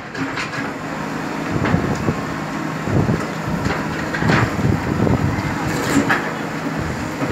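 Diesel engine of a JCB earthmover running steadily, with several short, sharp noises over it.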